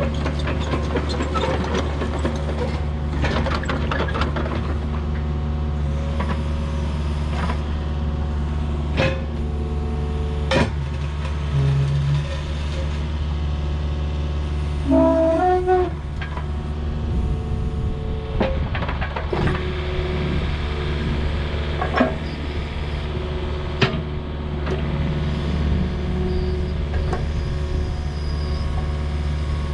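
Mini excavator's diesel engine running steadily, with scattered clanks and knocks over it and a brief squeal about fifteen seconds in.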